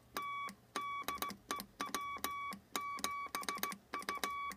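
Heathkit HW-16's CW side tone oscillator beeping Morse code as a straight key is sent: a pitched tone of about 1 kHz keyed in long and short beeps, with a click at the start and end of each. The side tone is quiet, nicely tamed by a resistor change in the oscillator.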